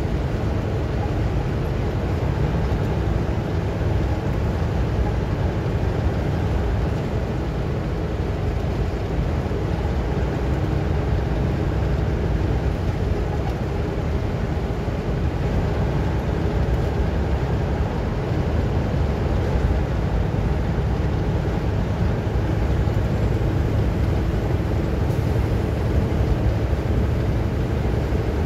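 Steady engine and road noise heard inside a vehicle's cabin while driving at highway speed, a constant low rumble with no change in level.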